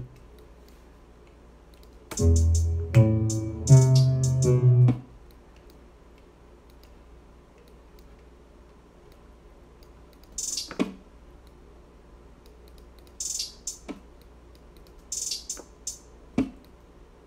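A trap beat being played back for about three seconds: a plucked, guitar-like melodic loop over deep bass, starting about two seconds in and stopping abruptly about five seconds in. After that the room is mostly quiet, with a few sharp clicks and short hissy bursts.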